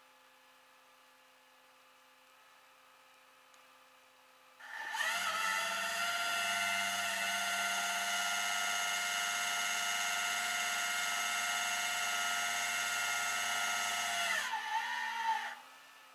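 Flatbed tow truck's hydraulic winch running, a loud steady whine that starts abruptly about four and a half seconds in as it pulls the SUV up the bed, then wavers and stops about ten seconds later.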